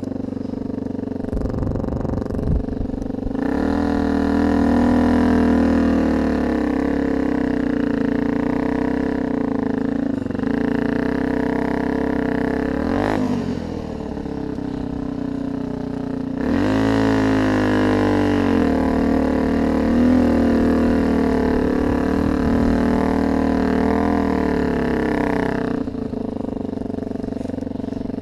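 A vehicle engine running steadily under load. Its pitch steps up and down several times and glides through two rises and falls, as with revving and gear changes.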